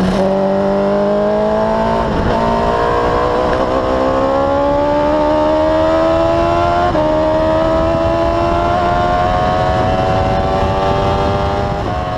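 Onboard sound of a Formula Predators PC015 single-seater race car's engine under acceleration, its note climbing steadily in pitch, with a brief break in the note about two seconds in.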